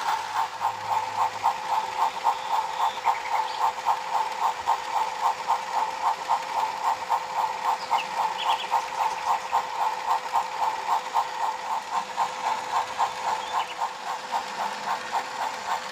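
Motorised toy Thomas the Tank Engine running around a battery-powered playset track: a steady motor hum with a rapid, regular clicking from the drive.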